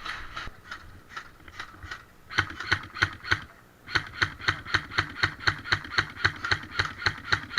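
Airsoft rifle firing a rapid string of single shots, about four to five a second: a short burst of shots, a brief pause, then a longer steady string.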